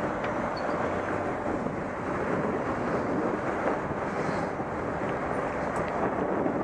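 Steady wind noise on a bicycle-mounted camera's microphone over the hum of city road traffic.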